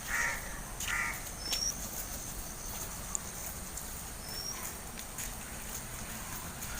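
Birds calling in the open: two short, harsh calls in the first second, and a brief high chirp repeated every few seconds over a faint steady background.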